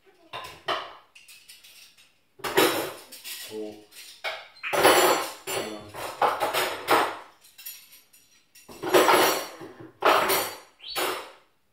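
Dishes and cutlery clattering and clinking in several separate bursts as a dishwasher is emptied and things are put away in a kitchen drawer.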